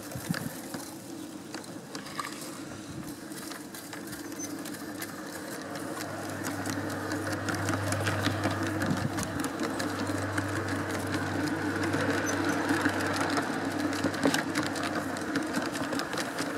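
Large-scale garden railway train running along the track, heard from on board: a steady whir of the locomotive's motor and gearing with fast clicking of wheels over the rails, growing louder from about a third of the way in.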